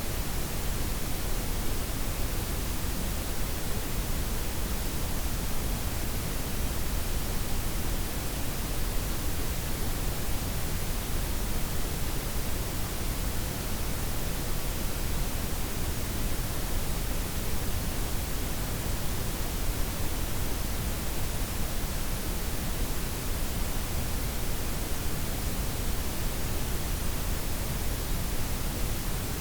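Steady blend of white, pink and brown noise, an even hiss with no changes, its highs softened and its lows full.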